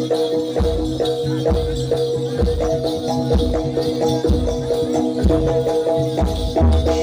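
Live jaranan music from a traditional Javanese percussion ensemble: drum strokes over steady held pitched tones, with rattling percussion.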